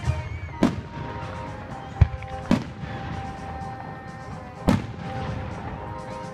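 Aerial firework shells bursting: four bangs in a few seconds, the loudest a deep boom about two seconds in. Music plays underneath.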